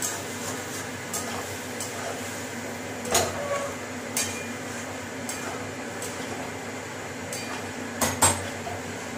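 A metal spatula stirring and scraping paneer and capsicum around a steel kadai, with scattered sharp metal-on-metal clinks, the loudest about three seconds in and a pair about eight seconds in. A steady low hum runs underneath.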